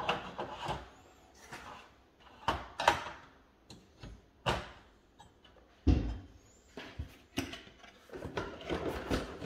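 Irregular plastic clicks and knocks of modular electrical components, such as a three-phase contactor, being handled and set down, with one heavier knock about six seconds in.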